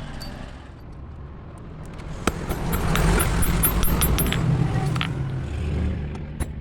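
Steady low hum of workshop machinery that swells about two seconds in, with one sharp metallic click and faint light metal ticks.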